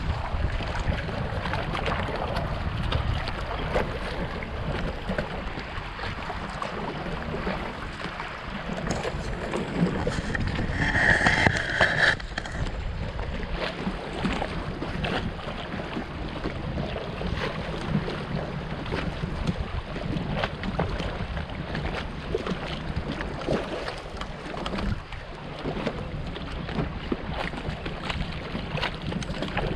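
Canoe paddled across a river: water washing against the hull and the wooden paddle dipping and splashing, with wind buffeting the microphone. About eleven seconds in, a brief, louder sound with a steady high tone stands out.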